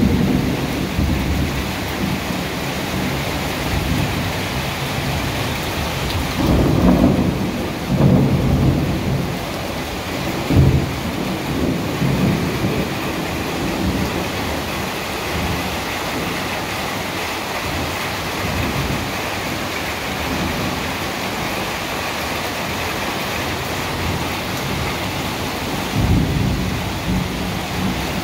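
Thunderstorm: steady heavy rain with rolls of thunder rumbling through it, loudest about seven to eight seconds in, a sharper clap about ten seconds in, and another rumble near the end.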